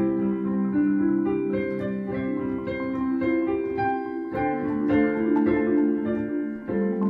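Solo piano playing a slow, gentle melody over held chords, with a new chord struck near the end.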